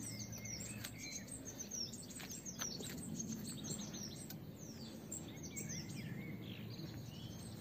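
Small birds chirping, many quick high calls one after another, over a faint steady low background hum.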